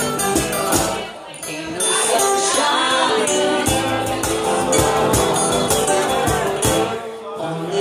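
A small live acoustic band playing: strummed acoustic guitars and keyboard, with hand percussion ticking quickly along. The music thins out briefly about a second in and again near the end.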